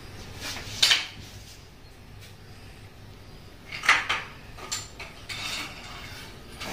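Indian cobra hissing in several short, sharp bursts, the loudest about a second in and about four seconds in.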